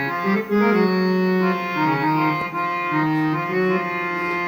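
Casio portable keyboard on its harmonium voice, playing a short melodic phrase in steady, held notes that step from one pitch to the next.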